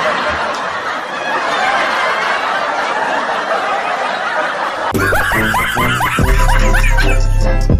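A group of people laughing, many voices at once, for about five seconds. It cuts off abruptly into music with a heavy bass beat.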